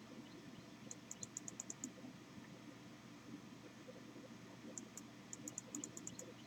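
Computer mouse clicking rapidly in two quick runs, about seven clicks a second, one run near the start and a longer one near the end, over faint room noise.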